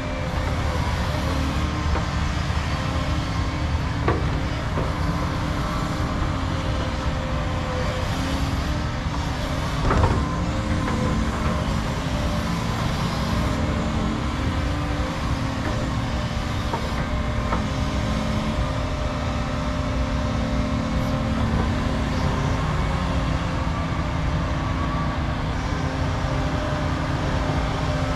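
Diesel engines of tracked excavators running steadily as they dig topsoil, with a sharp knock about ten seconds in.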